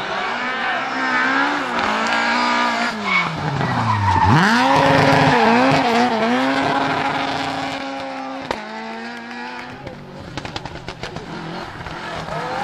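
Rally car engine at full effort through a slow corner. Its pitch falls steadily as the car brakes and changes down, then climbs and wavers as the throttle is worked on the exit, and holds at high revs. Near the end comes a run of sharp cracks and pops.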